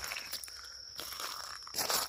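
Crunching and scraping on stony ground near the water's edge, with a cluster of sharper crackles near the end. A steady high insect drone runs underneath.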